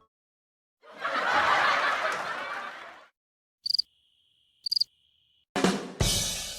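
A string of short Messenger sound-emoji effects: a burst of noise lasting about two seconds, two short high cricket-like chirps a second apart, then a drum hit followed at once by a cymbal-like crash that fades.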